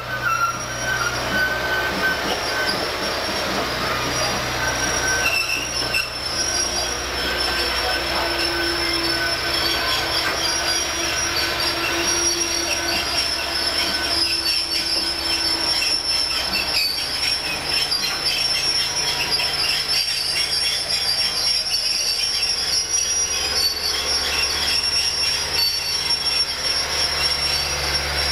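Passenger train cars rolling slowly past, their steel wheels squealing on the rails in a steady, high-pitched squeal over the rumble of the moving train.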